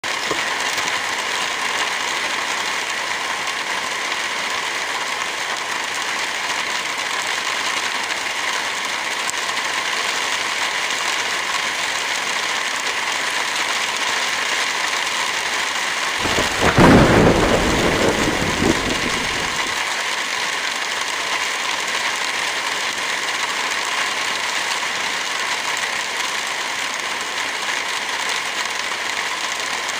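Steady rain falling, with a low roll of thunder about halfway through that swells and dies away over about four seconds.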